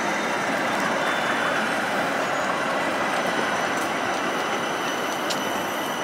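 Green-and-yellow Helsinki tram passing along the street, a steady rolling noise of its wheels on the rails. Faint high steady tones join in the second half, with one short click about five seconds in.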